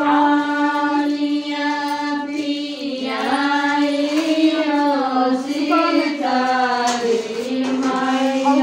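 Women singing a devotional folk song to the mother goddess together, unaccompanied, in long drawn-out phrases.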